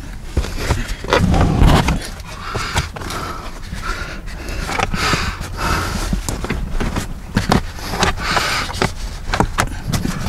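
Molded rubber floor liner being pushed and slid into a car's footwell: scraping and rubbing against the carpet and trim, with many short knocks and scuffs as hands work it into place, the heaviest rumbling scuff about a second in.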